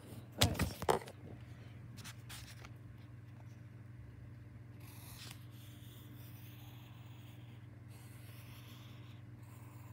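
A brief clatter of handling in the first second as the notebook is set down. Then a pencil scratches faintly on lined notebook paper, drawing a line, over a low steady hum.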